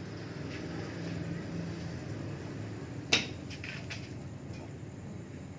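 A single sharp click about three seconds in, followed by a few fainter ticks, over a low steady hum.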